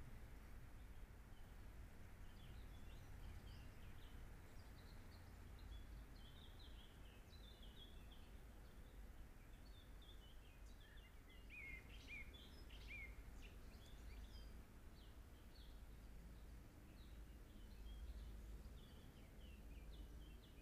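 Faint chirping of small songbirds, short repeated calls with a louder run about halfway through, over a steady low background rumble.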